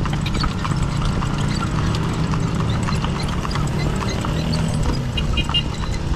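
A kalesa horse's hooves clip-clopping on the street as it pulls the carriage, over a steady low rumble of the ride. A few short high chirps come about five seconds in.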